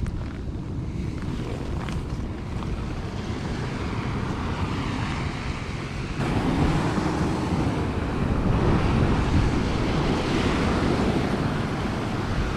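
Sea waves washing over rocks, with wind buffeting the microphone. About six seconds in the rush turns louder and heavier.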